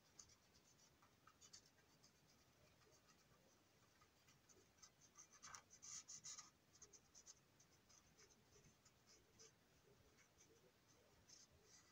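Faint scratchy strokes of a colouring tool being worked across the plastic side of a toy train box car, irregular and a little louder around the middle.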